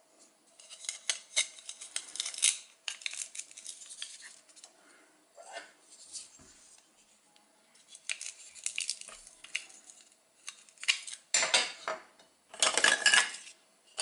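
Plastic toy food pieces being handled: light clicks and clatters against each other and the plastic bowl, with two longer rasps near the end from velcro-joined halves pulling apart.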